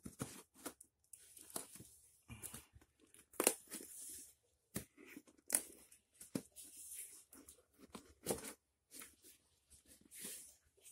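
Brown packing tape being ripped off a small taped cardboard parcel, in a string of short, irregular tearing rips with crinkling between them.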